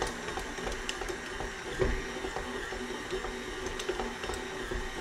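KitchenAid Artisan stand mixer running with its dough hook, kneading egg pasta dough in the steel bowl: a steady motor whir with scattered faint clicks and knocks.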